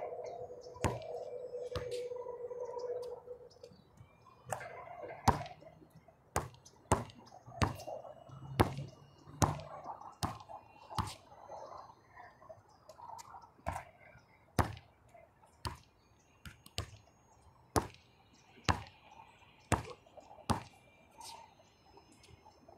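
A basketball bouncing on an outdoor hard court, dribbled about once a second. For the first three seconds or so, a metal ring fades away from the hoop the ball has just struck.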